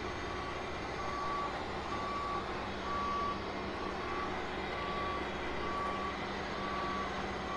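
A heavy rotator wrecker's backup-style warning alarm beeping steadily, about one beep a second, over the steady low drone of a diesel engine as the crane lowers a suspended truck.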